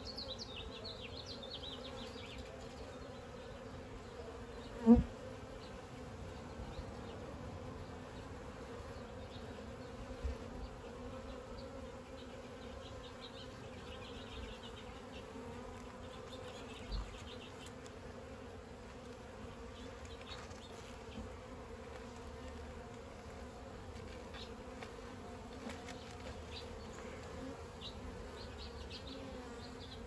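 A colony of honey bees buzzing over an open hive, a steady hum. A single sharp tap about five seconds in is the loudest sound, with a couple of fainter knocks later.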